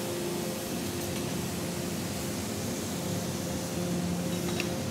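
Steady drone of engine-room machinery, a noise bed with several steady hum tones, and one small click just before the end.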